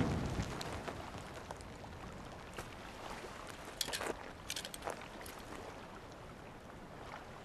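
Quiet river water running and lapping, with a few brief splashes between about two and a half and five and a half seconds in.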